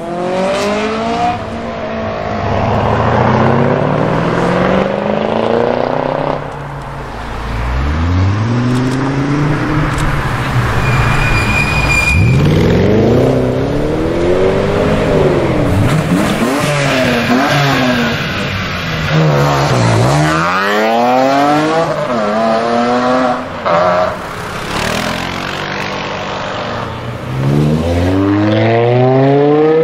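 BMW M5 E60 V10 engines accelerating hard, one run after another: the revs climb steeply in each gear and drop at the shifts. Near the end a car passes close at full throttle.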